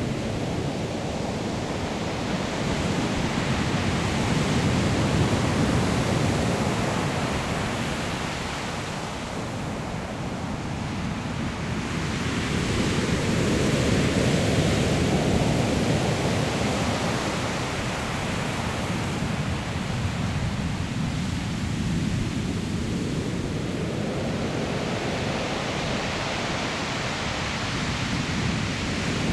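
Sea waves breaking on a pebble shore: a continuous rush of surf that swells and eases as the waves come in, loudest about five and again about fourteen seconds in.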